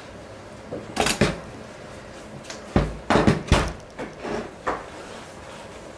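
A metal tube-shaped Wi-Fi router node being handled and set down onto its metal clamp mount on a wooden tabletop: a series of knocks and clunks. The loudest come in a cluster about three seconds in, with fainter clicks after.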